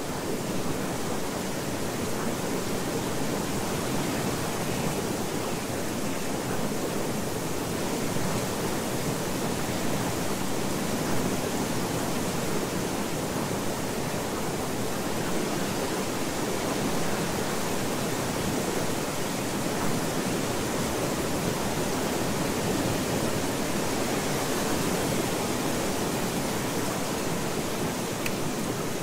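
Steady, even rushing noise like pink noise, unchanging throughout: the masking layer of a subliminal audio track, under which the affirmations are meant to be inaudible.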